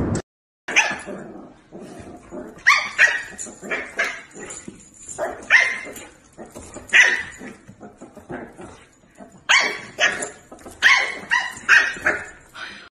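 Dogs barking: more than a dozen short barks, irregularly spaced, some coming in quick runs of two or three.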